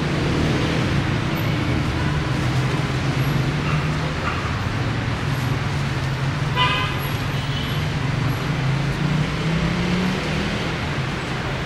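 Street traffic: vehicle engines running with a steady low hum, and a short car horn toot about six and a half seconds in.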